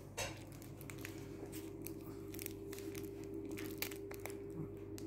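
Chihuahua gnawing and chewing a plush fabric toy: irregular crunching, crinkling bites. A steady hum starts within the first second and runs underneath.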